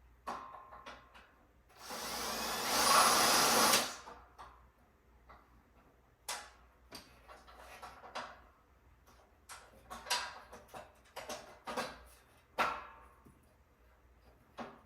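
A power drill runs for about two seconds, growing louder, then stops. It is followed by a series of short clicks and knocks from metal bed-frame parts and tools being handled.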